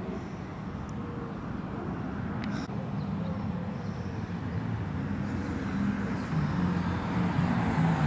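Steady low rumble of motor-vehicle engine noise, slowly growing louder toward the end.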